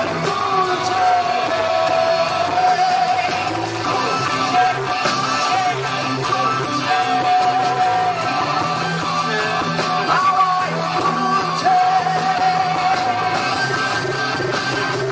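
Bengali rock band playing live: long held sung notes with pitch glides over electric guitar, bass, drums and keyboards.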